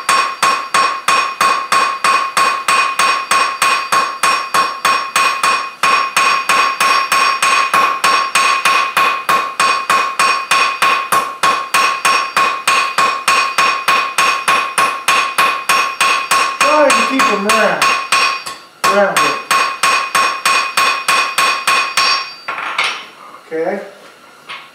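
Cross peen hammer striking red-hot mild steel bar stock on a JHM anvil in a fast, steady rhythm of about four blows a second, each blow leaving the anvil ringing: drawing out the sides of a forged leaf. The hammering stops about 22 seconds in, followed by a few lighter knocks as the hammer is set down on the anvil.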